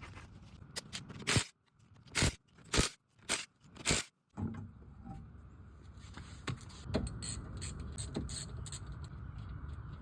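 Hand tools working on a car's front disc brake assembly: five short, loud metal scrapes about half a second apart, then a steady low rumble with a run of light, quick clicks.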